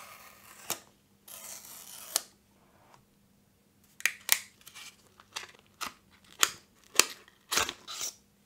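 Paper tear strip on a cardboard box being pulled away in two long rips, each ending in a sharp snap. About four seconds in, a run of sharp crinkles and clicks follows as paper packaging is handled.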